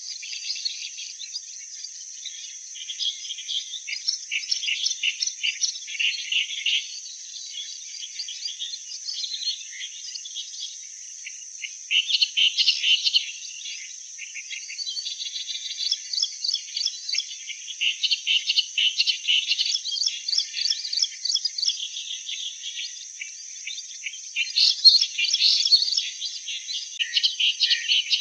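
Clamorous reed warbler singing: several bouts of loud, rapid chattering notes a few seconds long, separated by short pauses, over a steady high-pitched hiss.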